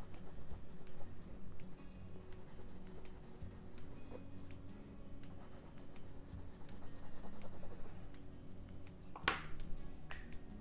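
Caran d'Ache Neocolor II water-soluble wax crayon scratching and rubbing on paper in irregular strokes, laying down texture, with one sharp click a little past nine seconds in.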